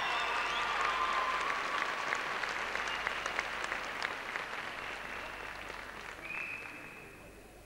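Arena audience applauding after a drum and bugle corps section, the last held chord of the music dying away in the first couple of seconds; the clapping slowly fades, with a single high held tone near the end.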